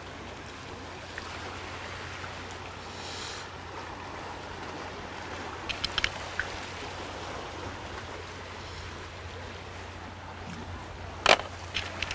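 Sea water washing steadily against shoreline rocks, with a few light clicks of small sea-snail (boma) shells knocking against a dish about six seconds in, and a sharper click near the end.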